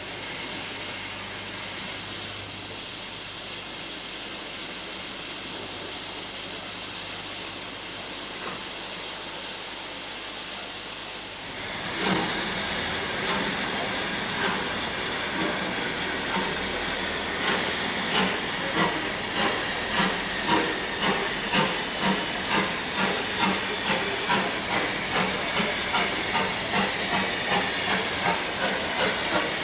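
Steam locomotive standing with a steady hiss of steam. About twelve seconds in it starts away, its exhaust beats slow at first, about one a second, then quickening to roughly two a second as it gets a heavy train moving.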